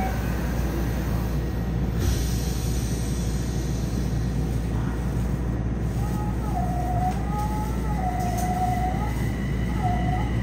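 Yokohama Municipal Subway 4000 series train running, heard inside the car: a steady low rumble, with a whine that wavers up and down in pitch joining about six seconds in.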